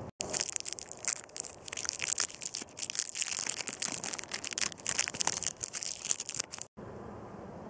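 Crinkling and rustling of a plastic candy wrapper being unwrapped close to the microphone: dense, irregular crackles that stop abruptly near the end.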